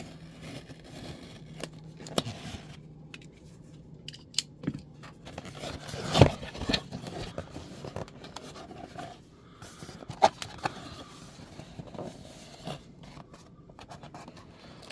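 A cardboard box and its packaging being opened and handled: scraping, crackling and tearing, with a sharp knock about six seconds in and another about ten seconds in.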